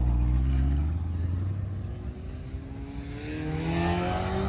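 Chevrolet Corvette C8's V8 pulling away and accelerating, its engine note climbing steadily in pitch and getting louder near the end.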